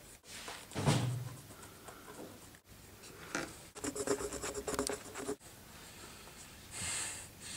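Writing by hand: a marker on a whiteboard and a pen moving across paper in quick strokes, heard in short takes that cut off abruptly.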